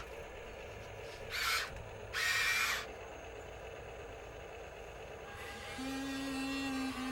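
Two short bursts of hiss, then about five seconds in a small electric motor starts up and runs with a steady gear whine, typical of a radio-controlled Huina construction model driving its tracks or arm.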